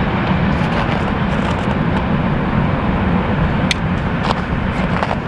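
Freight train rolling past, a steady heavy rumble of wheels on the rails, with a few sharp clicks in the second half.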